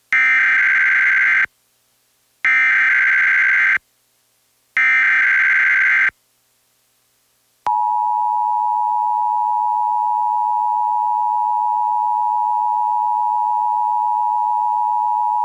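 Emergency Alert System tones on an FM radio broadcast: three short bursts of the SAME data header, a buzzy electronic warble, each about a second and a half long. A few seconds later the steady two-tone EAS attention signal comes in, holds for about eight seconds and cuts off suddenly. Together they open a Required Monthly Test alert.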